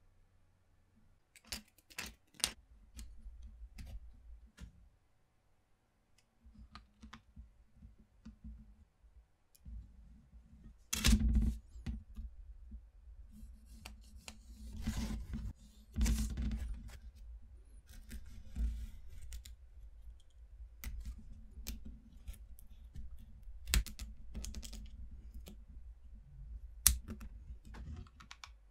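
Craft handling on a tabletop: scattered clicks and taps of popsicle sticks and tools set down and picked up. Partway through there is a short stretch of a pencil scratching along a ruler on the wood.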